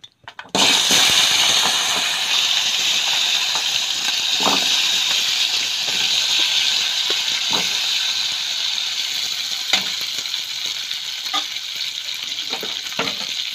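Pieces of cooked chicken curry hitting hot oil in a kadai and sizzling loudly as they begin to fry. The sizzle starts suddenly about half a second in and eases slightly, with a few scrapes and clicks of a steel spatula turning the pieces.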